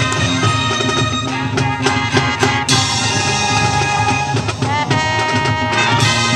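High school marching band playing its field show: wind instruments holding full chords, with a run of sharp percussion hits about two seconds in.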